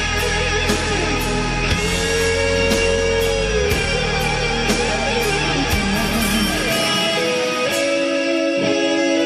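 Background music with guitar and a steady beat; the low bass drops out about two-thirds of the way through.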